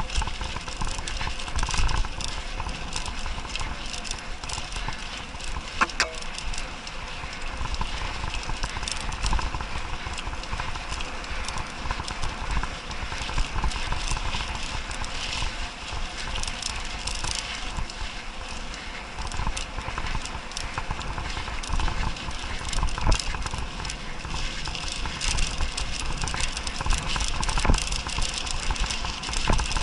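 Mountain bike ridden over a rutted, sandy dirt track. The bike and its mounted camera keep up a continual rattling and clicking over the bumps, with tyre noise on the sand and a steady low rumble, and a sharper knock about six seconds in.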